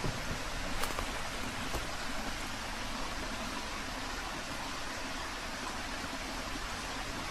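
Steady, even background hiss outdoors, with two faint clicks about one and two seconds in.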